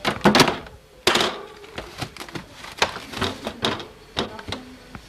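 Frozen food packages knocking and clattering as they are moved around in a freezer, a string of irregular sharp knocks with two louder rustling bursts in the first second or so.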